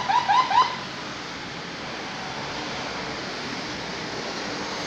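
A quick run of high-pitched laughter, about five short 'ha' syllables in under a second. After it, only steady outdoor background noise.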